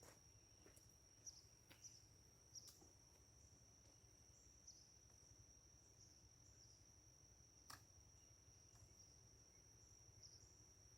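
Near silence: a faint steady high-pitched tone with a few faint clicks.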